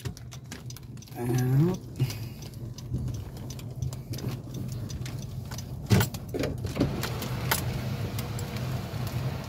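Honda car's engine running steadily as it drives slowly across sand, heard from inside the cabin. A brief murmur of voice comes about a second and a half in, and a couple of sharp knocks near six and seven and a half seconds in.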